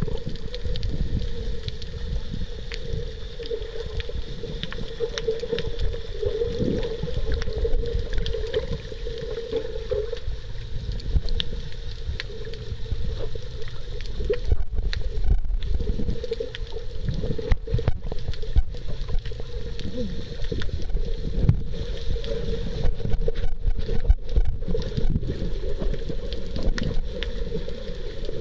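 Underwater sound picked up by a camera held below the surface while snorkeling: a dense low rumble of moving water with a steady hum running through it and scattered small clicks.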